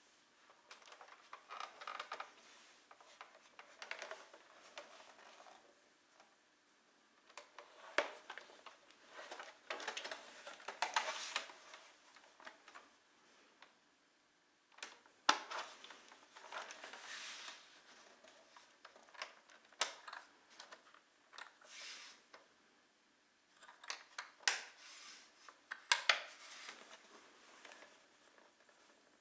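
Plastic case of a HyperBook 1000 laptop being handled and turned over on a wooden floor: irregular scrapes, rubs and sharp clicks with short pauses between.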